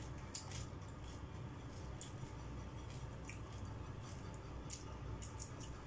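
Close-up eating sounds: chewing and wet mouth noises, with scattered small crackles and clicks as fingers pick at cooked shell-on shrimp and rice. A steady low hum runs underneath.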